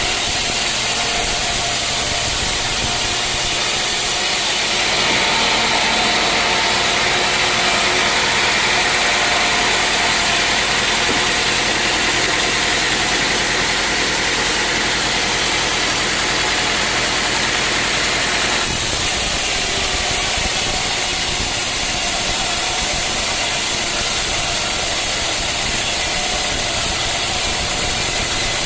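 Sawmill machinery running steadily with an engine-like drone. Its sound changes abruptly about five seconds in and changes back at around nineteen seconds.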